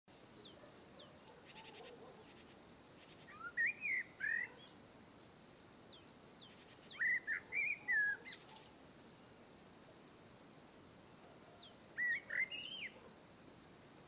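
Great tit calling: three short bursts of sharp chirping notes about four seconds apart, each led in by fainter thin high notes.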